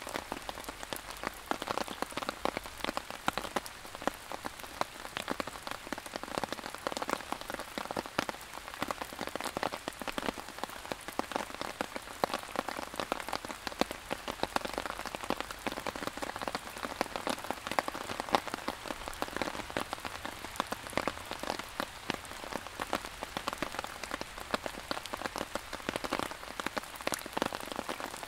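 Steady rain falling, heard as a dense, even stream of small drop ticks.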